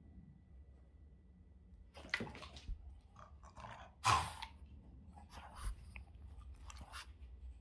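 A Boston terrier playing fetch with a rubber ball: a few short scuffs and knocks as the ball is tossed and retrieved, the loudest about four seconds in. Near the end come several soft mouthing sounds as the dog jumps up and drops the ball from its mouth onto the sofa.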